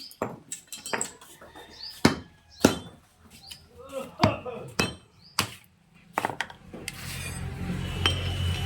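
Hammer striking metal parts in irregular sharp knocks, about a dozen strikes, while tractor brake parts are worked on. Near the end a steady low hum comes up.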